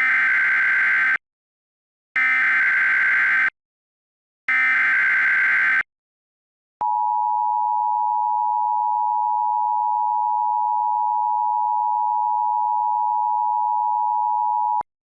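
Emergency Alert System tones: three short bursts of the buzzing SAME digital header, the data that encodes the alert, about a second apart. Then the EAS two-tone attention signal is held steady for about eight seconds and cuts off sharply.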